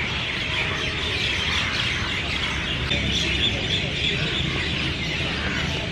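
Many birds chirping together in a dense, steady chorus of high twittering, over a low background rumble.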